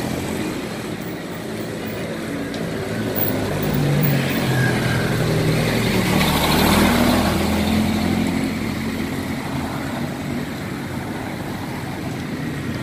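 Motor vehicle engine running steadily, growing louder to about halfway through and then easing off.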